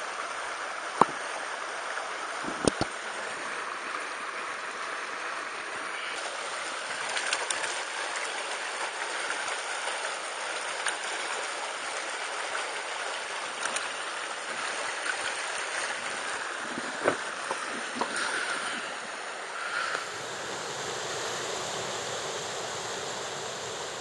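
Mountain stream water rushing steadily over stones, with a few sharp knocks here and there.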